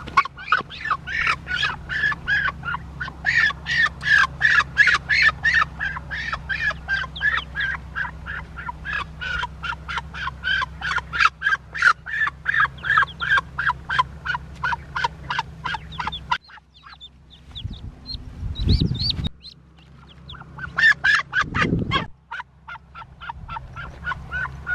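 A caught white domestic duck quacking rapidly and repeatedly in alarm while being held, about three harsh calls a second. The calls break off for a few seconds in the second half, when there are a couple of low thumps, then start again near the end.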